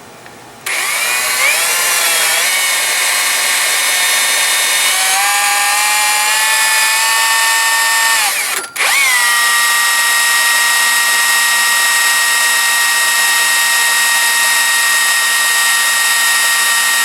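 Electric drill spinning a GM alternator through a cut-off 5/16-inch Allen key in its chuck: a steady motor whine that starts about a second in and shifts in pitch. It cuts out for a moment past the middle, then runs steady again. The drill is turning the alternator to make it charge, with the car's headlights on as a load.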